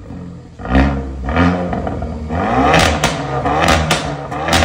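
Hyundai i30N's turbocharged 2.0-litre four-cylinder revved through a custom valved exhaust with the mid-resonator deleted: two short blips, then a longer rev broken by a string of sharp pops and cracks on the overrun.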